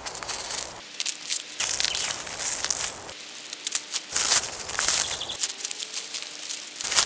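A parcel's black plastic wrapping being slit with a knife and torn open, then pulled apart by hand in bursts of crinkling and rustling.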